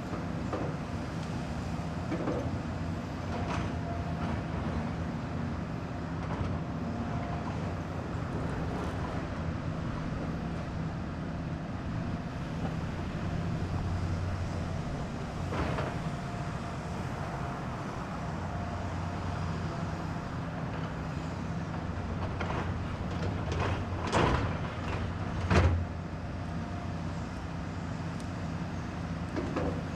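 Heavy diesel construction machinery running steadily, with a few sharp metal knocks, the loudest two close together near the end.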